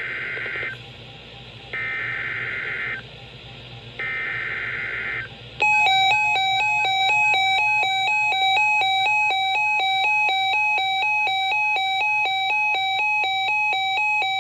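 NOAA Weather Radio SAME digital header: three short bursts of data tones about a second apart, coding a tornado watch alert. About five seconds in, a loud electronic alert tone starts, stepping rapidly back and forth between two pitches.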